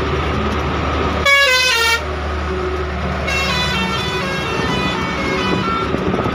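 Truck's musical horn: a loud, short run of notes stepping down in pitch about a second in, then a longer, quieter tune of quickly changing notes from about three seconds in until near the end. Underneath, the steady low drone of the truck's diesel engine, heard inside the cab.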